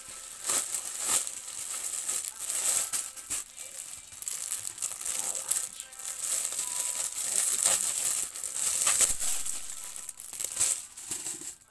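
Plastic packaging crinkling and rustling as a plastic courier pouch is torn open and a clear plastic bag is unwrapped by hand. The sound comes in irregular handfuls of sharp crackles, with short lulls between.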